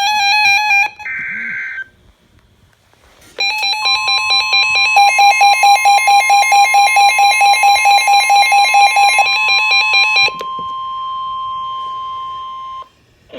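Emergency alert on a weather radio. A short burst of data noise is followed by a brief pause. Then a rapid, warbling alarm beeping plays over a steady 1050 Hz warning tone; the beeping stops about ten seconds in, and the steady tone runs on alone for a few more seconds before cutting off.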